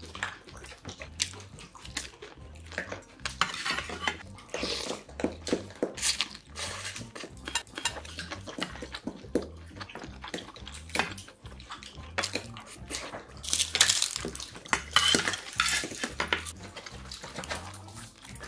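Metal chopsticks and spoon clinking against stainless steel bowls and a metal serving tray while eating, with chewing between the clinks. Many short, scattered clicks, busiest about a quarter of the way in and again about three quarters of the way in.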